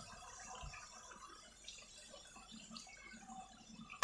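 Thick tomato gravy with chicken pieces bubbling and crackling faintly as it cooks in an aluminium karahi.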